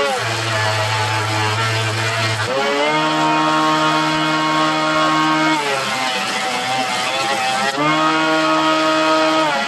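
Craftsman benchtop jointer running with a motor whine that drops in pitch when a board is fed across the cutterhead and rises again when it runs free, switching back and forth about every two to three seconds.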